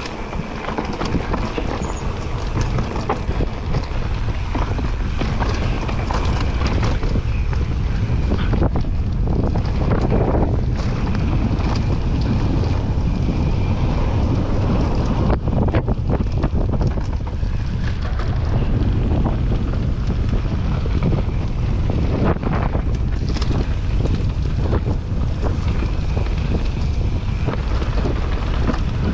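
Mountain bike riding down a dirt trail at speed: steady wind rushing over the microphone mixed with tyres rolling on dirt, and frequent short knocks and rattles as the bike goes over bumps.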